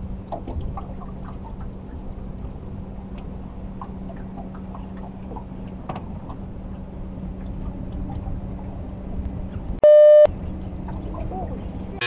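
Water lapping and gurgling around a drifting fishing boat over a steady low hum. About ten seconds in, a loud electronic buzzer sounds once for under half a second: a clothes dryer's end-of-cycle signal.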